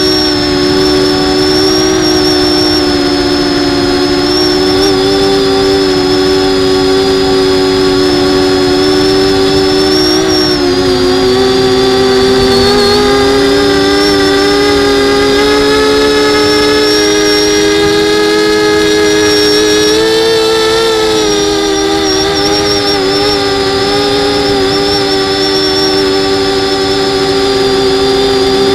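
Brushless motors and propellers of a 250 mm FPV racing quadcopter whining steadily, the pitch shifting a little with the throttle: it sags about ten seconds in and rises briefly around twenty seconds in.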